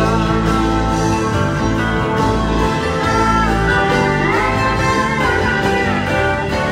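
Live band playing an instrumental passage: sustained chords from steel guitar and guitars over a steady bass. One long note slides up in pitch about four seconds in and eases back down near the end.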